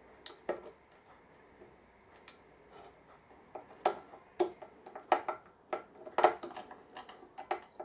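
Screwdriver working the screws on a Mitsubishi inverter's motor terminal block: irregular small metallic clicks and taps, sparse at first and much more frequent from about three and a half seconds in.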